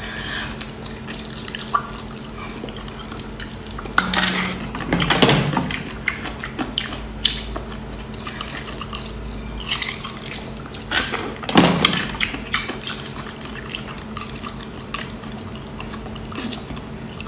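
Wet sucking, slurping and clicking mouth sounds of someone eating small snails straight off a skewer. A run of small clicks goes through the whole stretch, with louder slurps at about four to six seconds in and again around eleven to twelve seconds.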